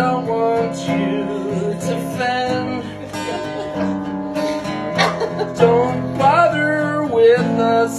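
Acoustic guitar strummed as the accompaniment to a country-style song, with sung melody coming in over it in the second half.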